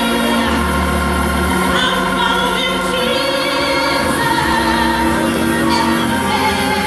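Gospel music: singing voices with vibrato over held bass notes, loud and steady.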